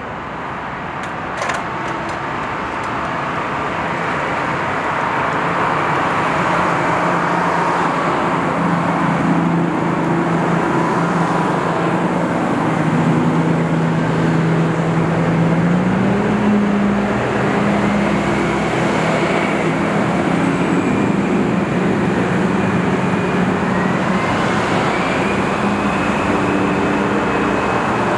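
Diesel engines of vintage transit buses running as they approach in a line, over steady highway traffic. The low engine note steps up in pitch about halfway through, and a faint whine climbs near the end.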